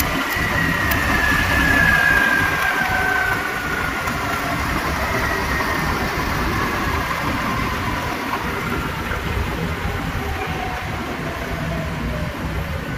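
Motor-flywheel-generator rig running down: a whine that falls steadily in pitch throughout, over a loud mechanical hum, as the machine loses speed and the lamps it feeds go dim.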